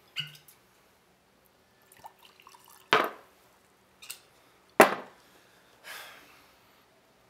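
A liquor bottle and a drinking glass being handled to pour a drink. Three sharp glass knocks, the loudest about two thirds of the way in, come with small clinks and a brief splash of liquid.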